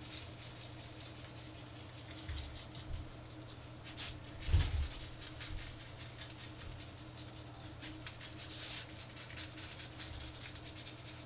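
Dry BBQ rub being shaken from a plastic shaker bottle, a fast patter of seasoning rattling out and falling onto racks of raw spare ribs on paper. A steady low hum runs underneath, with a single low thump about four and a half seconds in.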